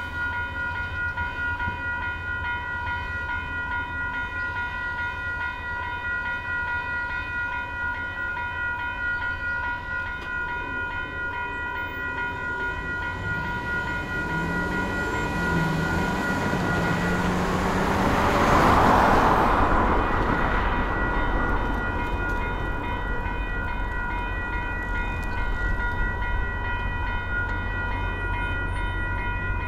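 Railway crossing warning bell ringing steadily with the signals flashing, stopping about two-thirds of the way in as the gates lift. A car then drives over the crossing, its engine rising and its tyre noise swelling and fading.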